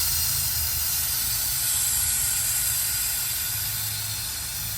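Compressed air hissing out of an air-suspension air tank as it is drained. The hiss is steady and slowly fades as the tank runs nearly empty.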